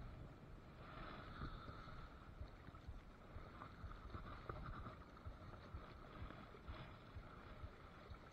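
Faint, steady rush of river water, with a low rumble of wind on the microphone.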